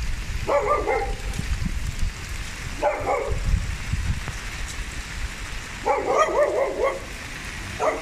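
Steady rain falling, with a dog barking in four short bouts over it.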